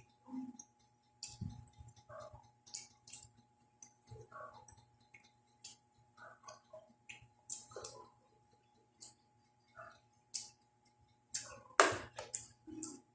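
Close-up eating sounds: a person chewing and smacking with many small, irregular mouth clicks. There is one louder crunching bite near the end.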